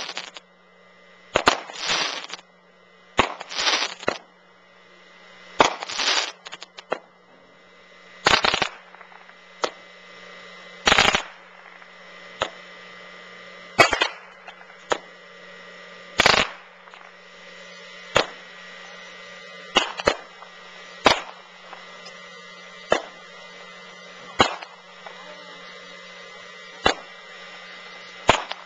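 "All Tricked Out" consumer aerial firework firing a long series of shots. The first few, in the opening seven seconds, are longer bursts that trail off into crackle. After that come single sharp bangs about every one to two seconds.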